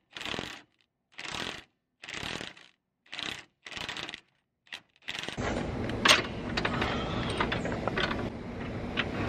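Ratchet wrench on a 21 mm socket turning out a front control arm bolt: a run of short clicking ratchet strokes, about one a second, each followed by a pause. After about five seconds this gives way to a steadier rumble with a few sharp metallic knocks.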